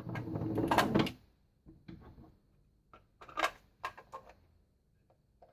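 Plastic clicking and knocking as batteries are fitted and the motion-sensor alarm unit is handled: a busy clatter in the first second, then several separate clicks, the loudest about three and a half seconds in.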